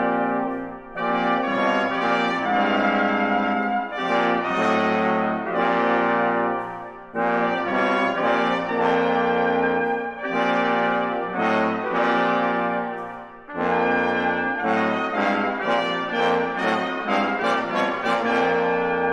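A brass quintet of two trumpets, French horn and two bass trombones playing loud full chords in phrases separated by short breaks. In the last few seconds it plays a run of short, detached notes.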